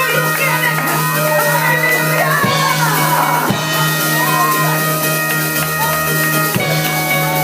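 Church praise music: sustained chords held under voices shouting and singing out in worship.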